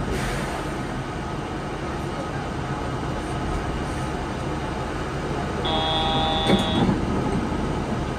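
Yurikamome 7500 series rubber-tyred new-transit train running, a steady rolling noise. About six seconds in, a brief electronic tone sounds for about a second.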